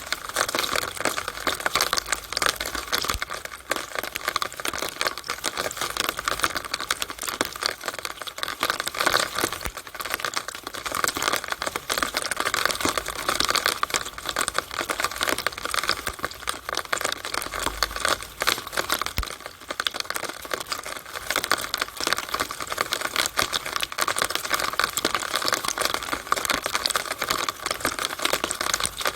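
Rainwater running and splashing through a downspout in the rain: a steady, dense crackling patter of drops.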